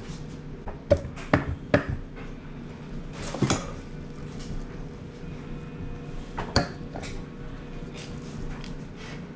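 Metal tools and engine parts clinking and knocking as they are handled, about five sharp clanks, three of them close together in the first two seconds, over a steady low hum.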